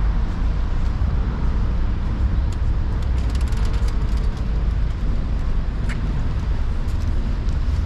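City street traffic noise from cars passing and idling at an intersection, a steady deep rumble. A short high chirp sounds about six seconds in.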